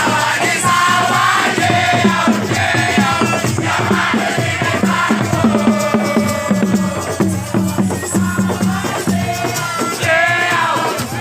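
Music: voices singing over fast drumming and shakers, with crowd noise.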